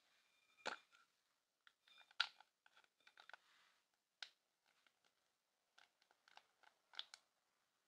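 Plastic lipstick tube being handled: a scatter of short, sharp clicks and small taps as its clear cap is pulled off and the red stick is twisted up. The two loudest clicks come under a second in and about two seconds in.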